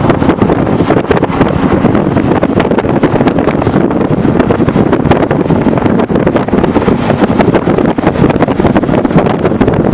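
Scania S730 heavy-haulage truck with its 16-litre V8 running on the move, buried in heavy wind buffeting on the microphone, a loud, steady rushing noise.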